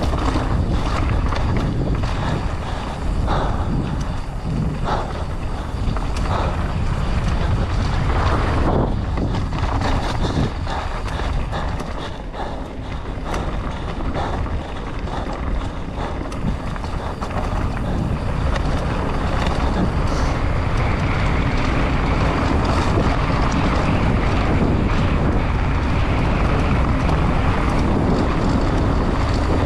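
Mountain bike descending a rough trail at race speed: wind rushes over the camera microphone while the tyres run on dirt and the bike rattles. Sharp knocks from roots and rocks come in the first half, and from about eighteen seconds in the wind rush grows louder and steadier.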